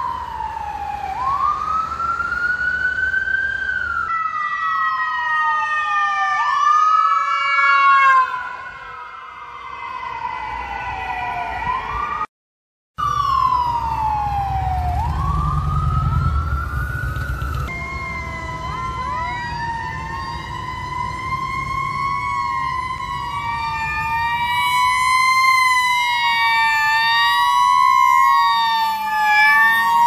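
Emergency vehicle sirens, including an ambulance's, sounding as the vehicles pass: wail tones sweeping up and down, at times two sirens overlapping. A brief dropout comes about twelve seconds in, followed by a low vehicle rumble under the siren; near the end the siren warbles up and down faster.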